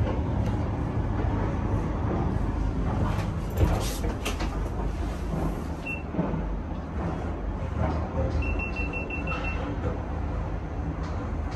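Cable car gondola cabin running along its haul rope past a support tower: a steady low rumble with rattles and knocks, one sharp clunk about three and a half seconds in. A quick run of short high beeps near the end.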